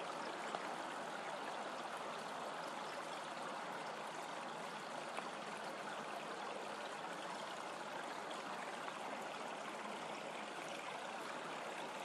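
Steady, even outdoor background hiss with no distinct events.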